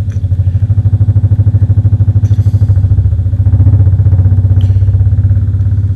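Loudspeaker of a resonant-rings demonstration, driven by a frequency generator, giving a loud low hum that pulses about eight times a second as it shakes a set of steel rings at one of their resonant frequencies.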